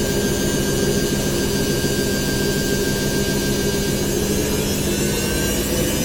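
Washing machine in its spin cycle, the drum spinning fast: a steady motor hum with a higher whine over a rushing noise.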